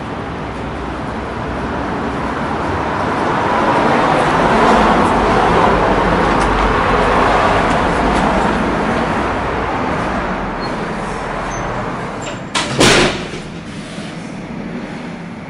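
Rushing noise of passing traffic that swells over several seconds and eases off, then a single short, loud bang near the end from the heavy wooden entrance door shutting.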